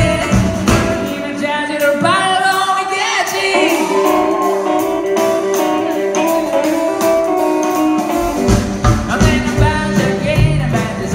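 Live band playing, with a male singer over electric and acoustic guitars, upright bass and drums. About two seconds in the bass and drums drop out, leaving held sung and melodic lines over light accompaniment, and the full band comes back in about eight seconds in.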